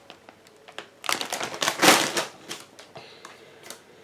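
Crinkling of a plastic bag of potato crisps being handled and set down, heaviest between about one and two seconds in, with a few sharp clicks of the packet around it.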